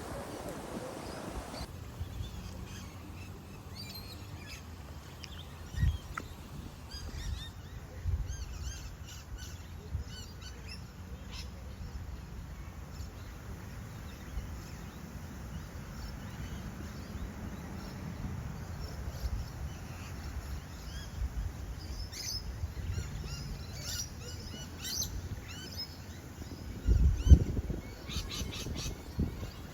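Small birds chirping and twittering, getting busier near the end, over a low rumble of wind on the microphone. A few low thumps break in, the loudest near the end.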